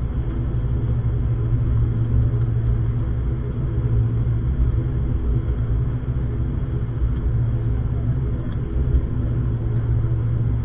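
ATR 72 turboprop engines and propellers droning steadily, heard inside the passenger cabin: a constant low hum with a strong low propeller tone.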